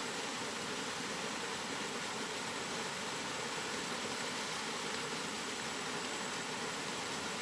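Steady rain, an even, unbroken hiss with a faint high steady tone running through it.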